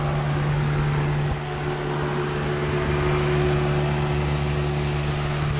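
Honda Civic's electric radiator cooling fan running with a steady hum, key on and engine off. It runs whenever the ignition has power because its temperature switch has been bypassed.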